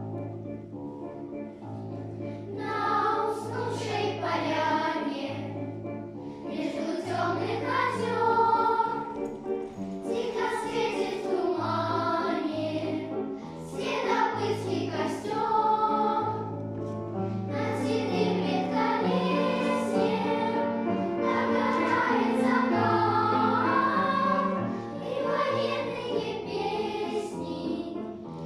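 A group of children singing a song together over an instrumental accompaniment with a steady, stepping bass line.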